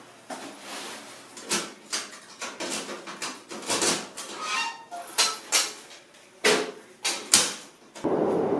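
Clicks, knocks and a brief squeak of a wall-mounted mailbox and its little door being handled. Near the end it cuts to a steady outdoor background noise.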